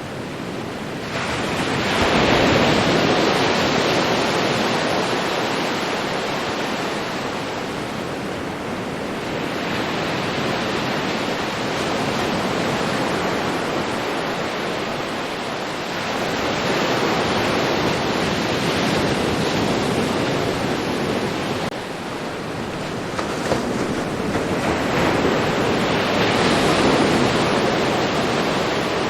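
Ocean waves breaking and washing up on a beach. The rush of surf swells and ebbs four times, roughly every six to eight seconds.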